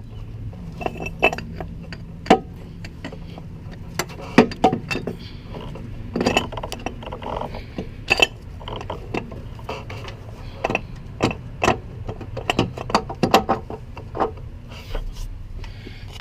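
Irregular sharp metallic clicks and clinks of hand tools and bolts as engine-mount bracket bolts are backed out and the mount is worked free, over a low steady hum.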